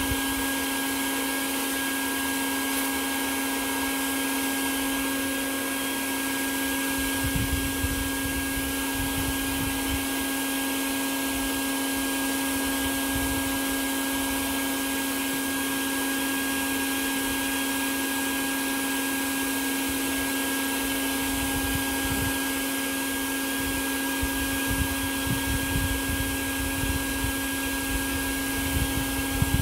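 A motor running steadily with a constant low hum over a rushing noise, with a few low bumps about seven seconds in and again near the end.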